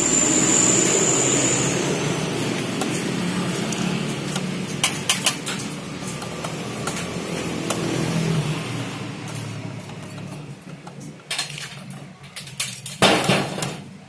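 Screwdriver clicking against the sheet-metal chassis of an NEC Mate all-in-one PC as screws are driven around the fan housing: a few sharp clicks about five seconds in and a louder clatter near the end. Under it, a steady low noise swells and then fades over the first nine seconds or so.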